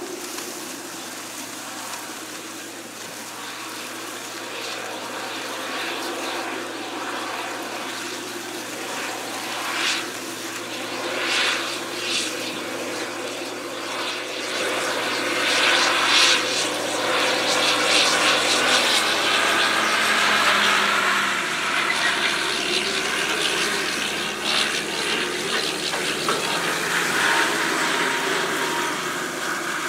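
Case IH 9370 Steiger's Cummins 14-litre turbocharged six-cylinder diesel running under load while pulling a disk ripper, growing louder as the tractor nears and its engine note dropping as it passes, about two thirds through. Irregular crunching and rattling from the ripper working through corn stubble rides over the engine.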